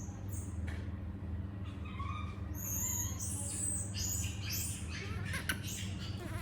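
Baby monkey making a string of short, high-pitched squeaks and chirps, thickest in the second half, over a steady low hum.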